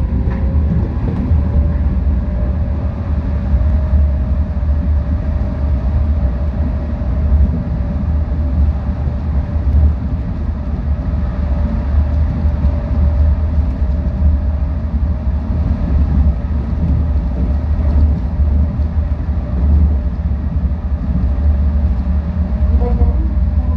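Busan Metro Line 4 rubber-tyred light-metro train running along its concrete guideway, heard from inside the car. It makes a steady low rumble with a faint motor whine that rises slightly in pitch over the first few seconds and then holds steady.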